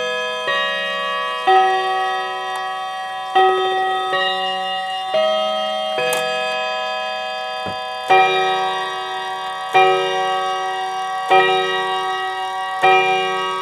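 A chiming clock sounds its chimes, each struck note ringing on as it fades. First comes a run of notes at changing pitches, then from about eight seconds in the same note is struck over and over, about every second and a half.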